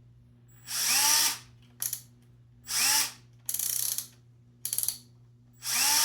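Power drill run on low speed in short trigger pulls: the motor whirs up in pitch three times, with three shorter rattling bursts in between.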